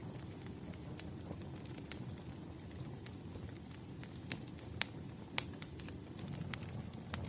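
Burning firewood crackling: a steady low rumble of flames with scattered sharp pops, two louder snaps near the middle.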